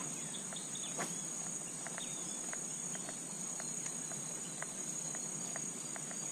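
Steady high-pitched trilling of a chorus of insects, with scattered faint short ticks and one slightly louder click about a second in.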